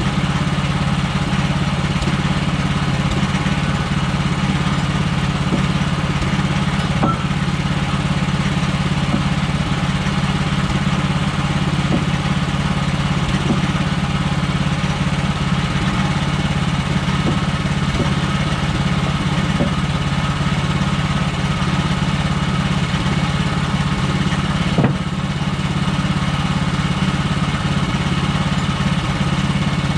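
Woodland Mills HM130 Max band sawmill running steadily, its gasoline engine driving the band blade through the log. There is a brief click about 25 seconds in.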